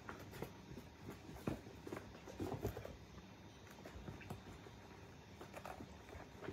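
Kittens' paws scrabbling and scuffing on a corrugated cardboard scratcher during play, a faint irregular patter of soft scratches and taps, with a few louder knocks in the first few seconds.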